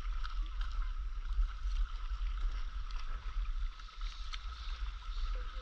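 Wind rumbling on the microphone over light lapping, dripping and splashing of sea water around stand-up paddleboards and paddles.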